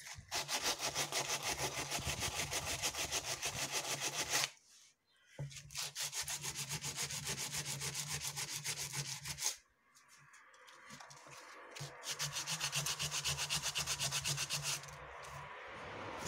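Fast back-and-forth scraping of a sanding pad over a rough cement vase surface, about four strokes a second, in three runs with short breaks about 4.5 and 9.5 seconds in. The cement is being abraded to bring out the beads set in it. Near the end the strokes give way to a softer hiss.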